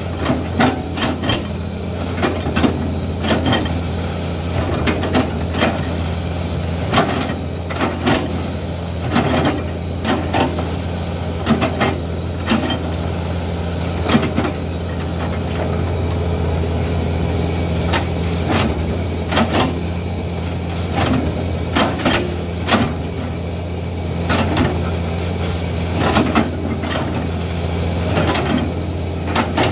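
Excavator's diesel engine running steadily, with repeated sharp cracks and thuds at irregular intervals as its knife bucket chops into a felled oil palm trunk.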